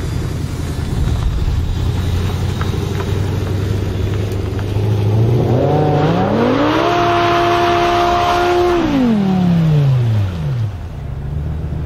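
Performance car engine running low and rough, then revving hard from about five seconds in, holding a high note for about two seconds, and dropping back down near ten seconds.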